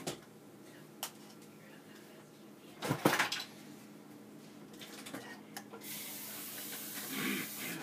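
Kitchen clatter of cupboards and dishware, with a loud knock about three seconds in. About six seconds in, a faucet is turned on and water runs steadily into a cup.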